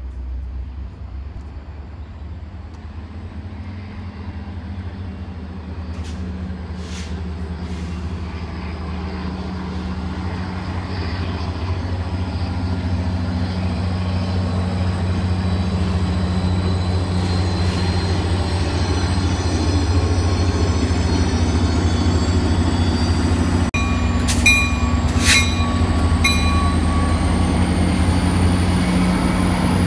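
Caltrain EMD F40PH diesel locomotive pulling a passenger train into the station, its engine drone and the rolling train growing steadily louder as it draws alongside. A few short high-pitched metallic squeals come about three quarters of the way through.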